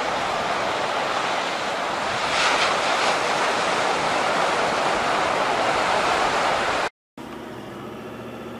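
Surf breaking on a beach: a steady wash of waves, swelling a little about two and a half seconds in. Near the end it cuts off abruptly to a quieter, steady engine and tyre drone heard inside the cabin of a Mazda BT-50 ute driving on sand.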